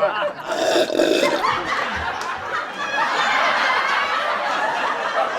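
Canned studio-audience laughter from a sitcom-style laugh track, many people laughing at once without a break.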